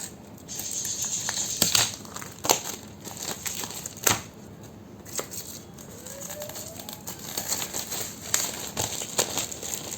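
Plastic wrapping on an oracle card deck's box being crinkled and pulled off, with sharp crackles and a few clicks of handling.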